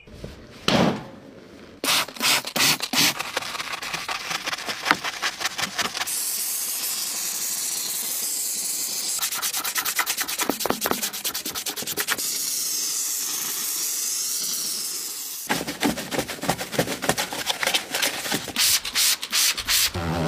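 A brush scrubbing car carpet and upholstery in quick back-and-forth strokes, in several spells separated by stretches of steady hiss.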